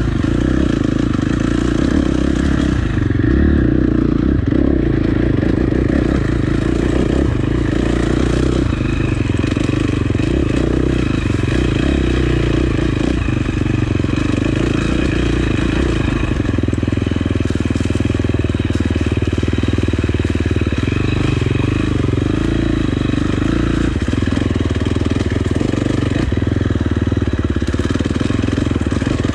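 Dirt bike engine running at low, fairly steady revs as the bike is ridden slowly along a rough, rocky trail.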